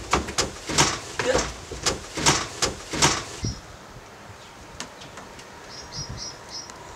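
A man's quick running footsteps thudding on a timber deck, about three steps a second, with heavy breathing, stopping a little over three seconds in. After that it is quieter, with a few short high bird chirps near the end.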